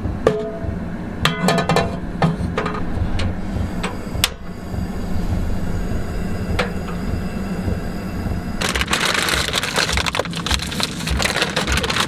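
Clicks and metallic clinks as a Coleman butane camp stove is lit and a metal pot is set on its grate. From about nine seconds in, frozen pasta and vegetables pour from a bag into the hot pot, rattling and sizzling.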